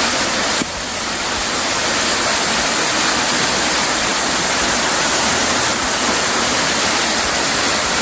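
Waterfall of about 40 feet pouring onto rocks and a pool, heard close: a loud, steady rush of falling water, briefly a little quieter just over half a second in.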